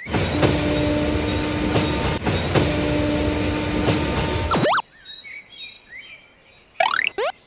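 Cartoon train sound effect: loud train running noise with two long, steady horn blasts, cutting off sharply about four and a half seconds in. A few short rising whistles follow near the end.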